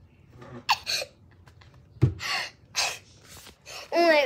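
A young girl's short breathy gasps and exhalations, a single knock about two seconds in as the phone filming her is handled, and a brief voiced cry near the end.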